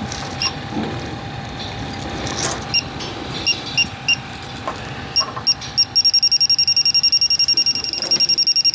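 Electronic refrigerant leak detector beeping: a few scattered high beeps at first, then from about two-thirds in a fast, steady run of about ten beeps a second. That is the detector's alarm on sensing leaking refrigerant at the unit.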